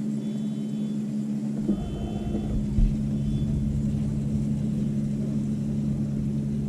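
Boat motor running with a steady hum. A low rumble joins about two seconds in, with one thump shortly after.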